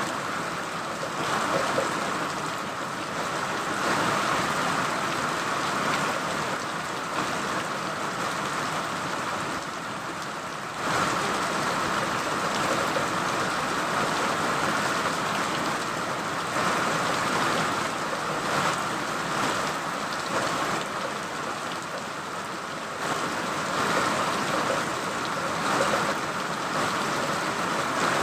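Steady rain falling in a dense, even hiss that gets slightly louder about eleven seconds in.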